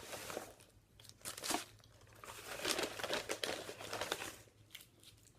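Paper and plastic food packaging being crinkled, handled and torn open in several irregular rustling bursts, with a few small sharp ticks near the end.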